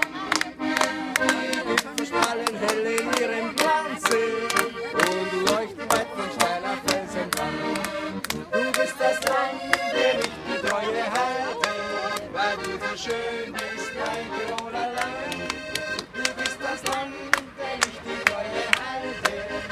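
Accordion-led traditional Alpine folk music playing with a steady beat, with hands clapping along.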